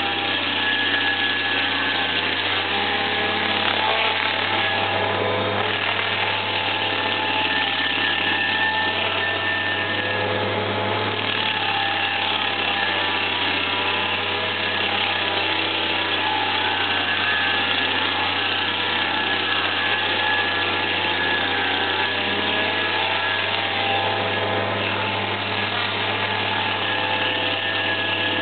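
Homemade tractor-mounted stump grinder running steadily, its tractor engine and spinning cutter wheel grinding into a wooden stump and throwing chips.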